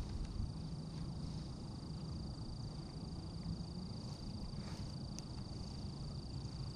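A steady, high-pitched trill from a calling animal, unbroken throughout, over a low outdoor rumble of wind and water, with a few faint clicks.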